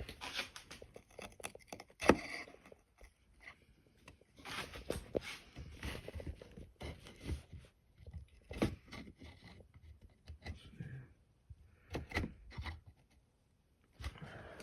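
Handling noise from a stainless-steel multi-tool being worked by hand: scattered metal clicks and knocks with short scrapes, the sharpest click about two seconds in.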